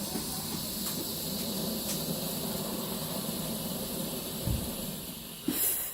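Fireworks going off: a steady hiss, a dull thud about four and a half seconds in, and a sharp, loud crack near the end.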